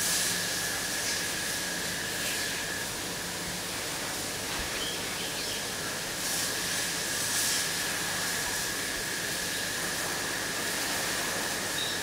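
High-voltage arc burning inside an incandescent light bulb, fed by a ZVS driver and flyback transformer: a steady hiss with a thin high whine, flaring up briefly a few times.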